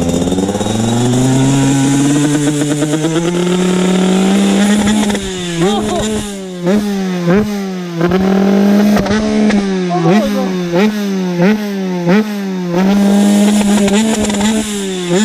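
Two-stroke single-cylinder engine of a carburetted TM SMR 125 supermoto revved hard: the pitch climbs over the first few seconds and is held high, then the throttle is blipped over and over, about once a second, each rev rising and dropping back.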